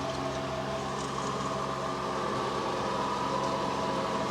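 A steady mechanical hum, like a motor running at an even speed, made of several constant tones that do not change.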